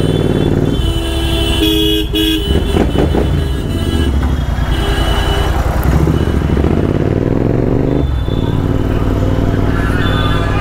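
Royal Enfield Interceptor 650's parallel-twin engine running steadily under way through an aftermarket exhaust, with vehicle horns honking in the first half. The engine note dips briefly about eight seconds in.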